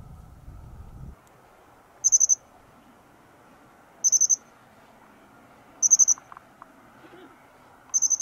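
Japanese accentor calling: four short, high trilled chirps, each a quick run of pulses, about two seconds apart.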